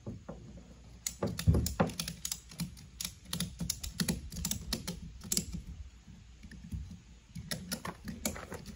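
Irregular runs of light clicks and knocks from the ratchet strap and milk-crate kayak cart being handled and shifted on the kayak, with a lull of about two seconds before a few more clicks near the end.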